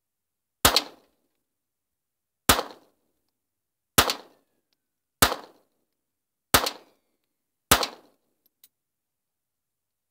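Six single shots from a small Sterling .22 LR pistol, spaced a second and a half or so apart, each a sharp crack with a short fading tail, then a faint click about a second after the last shot.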